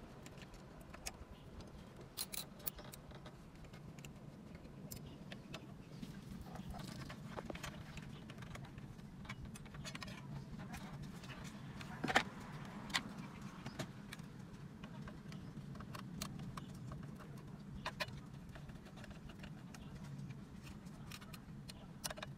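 Screwdriver driving screws into the metal case of an aftermarket Android car stereo, with scattered sharp metallic clicks and taps as the screws, bracket and unit are handled, over a low steady hum.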